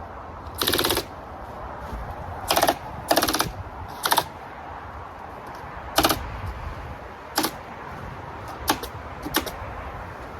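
Rapid-fire stapler gun shooting staples in short bursts, fastening ice and water guard underlayment to a roof deck. About eight bursts of quick clicks, the first and two around three seconds in the longest, the later ones single short bursts.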